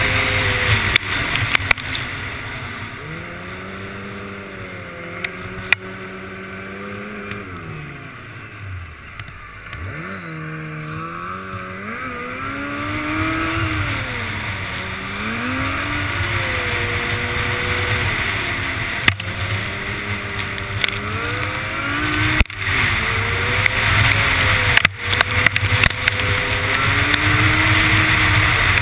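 Snowmobile engine running at speed under throttle changes, its pitch repeatedly rising and falling, with a deep drop about a third of the way in before it climbs again, over a steady rushing noise. A few sharp knocks come near the end.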